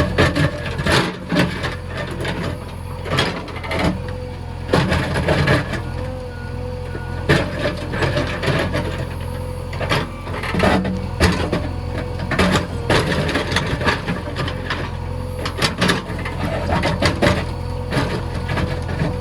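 JCB backhoe loader's diesel engine running steadily, with frequent knocks and clatter throughout.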